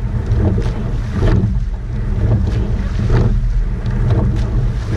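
A coxed rowing eight racing under a strong wind rumble on the microphone. The knock and splash of the oars at the catch repeat about every two seconds with the crew's stroke, alongside the rush of water past the hull.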